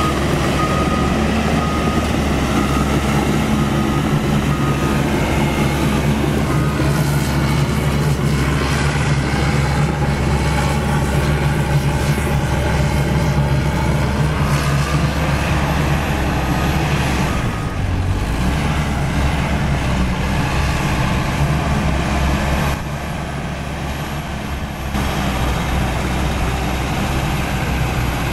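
CAT D5K2 XL crawler dozer's diesel engine running steadily under load while it pushes dirt. For the first few seconds its reversing alarm beeps in an even, repeated rhythm, and the engine sound drops for a couple of seconds near the end.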